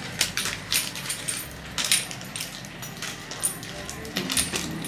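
Light metallic clicks and taps at irregular intervals, a small metal ring being handled against a hard countertop.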